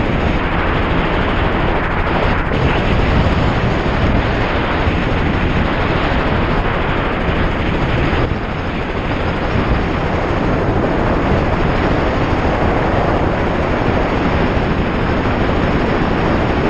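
Strong wind buffeting a GoPro microphone: a loud, steady rush and rumble with no let-up.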